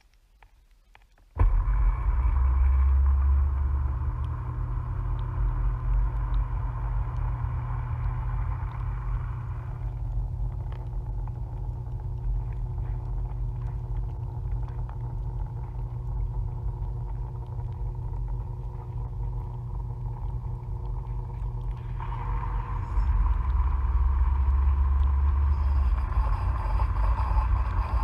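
A dishwasher's pump switches on suddenly about a second and a half in and runs with a loud, steady low hum and a rushing hiss of water. The hiss drops away about ten seconds in and comes back, with a stronger hum, a little after twenty seconds.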